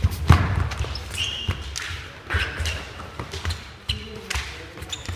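Sabre fencers' footwork stamping and scuffing on a wooden sports-hall floor: a quick run of heavy thumps and sharp knocks, with a few short metallic rings as the sabre blades clash.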